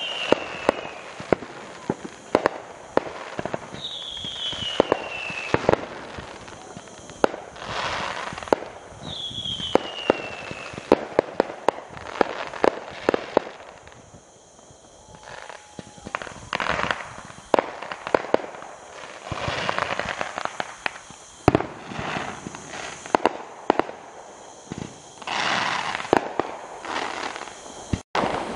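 Fireworks display: a rapid, irregular series of bangs and pops with patches of crackling. A whistle falling in pitch sounds three times in the first eleven seconds, and there is a short lull around the middle.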